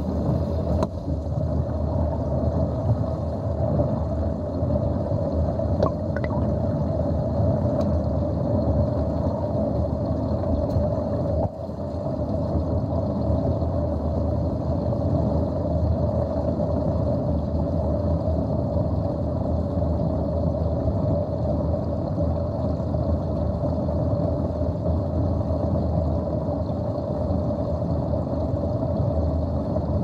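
Water draining down a plughole through a chrome strainer: a steady gurgling rush, heard from under the water, with one brief dip about a third of the way through.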